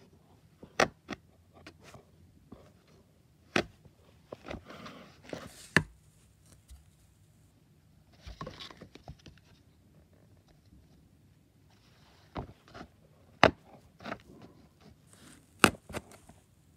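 A wooden-handled pointed tool punched into a stiff white board, each puncture a sharp pop coming every few seconds, with softer crunching and scraping as the point works into the holes in between.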